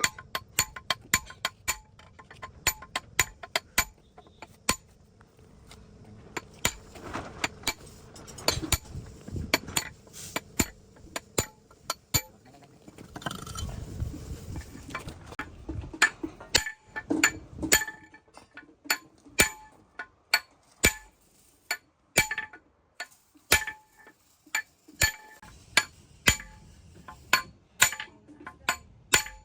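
Repeated sharp metallic clinks and taps, each with a brief ring, coming irregularly about once or twice a second, with low handling and scraping noise in between: metal tools and parts being struck and handled during engine work.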